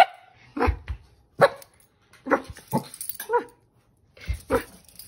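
Small dog barking repeatedly, about eight short single barks at uneven intervals.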